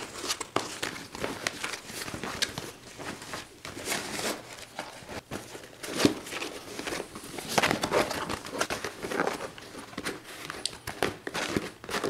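Stiff waxed cotton canvas crinkling and rustling in uneven handfuls as a sewn haversack is worked right side out by hand, with a sharper crackle about six seconds in.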